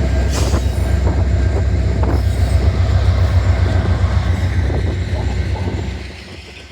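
Norfolk Southern freight train passing close by, a heavy low rumble that drops off sharply about six seconds in.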